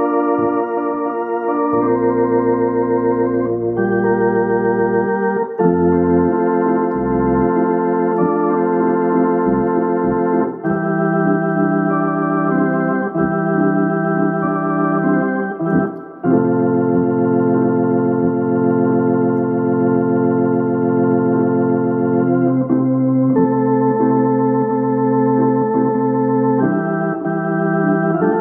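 Hammond C3 tonewheel organ playing a slow tune in held chords over a low bass line, the chords changing every second or two.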